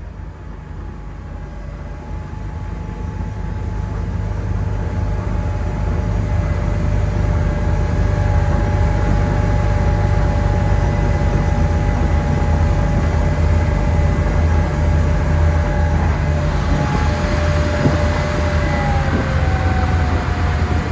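MerCruiser 4.3L V6 sterndrive of a Bayliner 185 bowrider running at high speed on a full-throttle run. It grows louder over the first several seconds, then holds steady, and its pitch drops slightly near the end.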